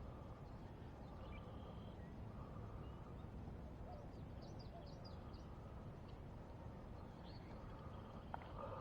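A few distant birds chirping in a quick run of short high notes about four seconds in, over a faint steady outdoor background noise, with a single sharp click near the end.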